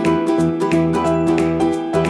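Cheerful ukulele background music with a steady clapping beat.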